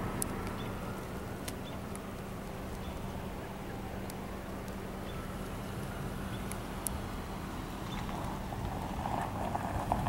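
Outdoor street ambience: a steady low engine hum that fades out about seven seconds in, with traffic noise building near the end.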